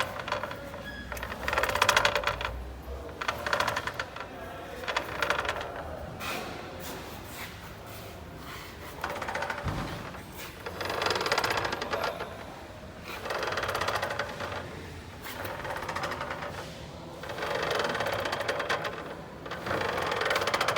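Fast rattling, clattering noise from a Nissan Kicks gearbox, the fault the owner is recording. It comes in repeated bursts of a second or two, with quieter gaps between.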